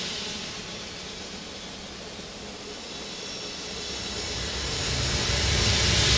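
Ambient electronic sound-art composition: a hissing wash of noise with a low rumble beneath it, fading down and then swelling slowly back up near the end, like a slow breath or wave.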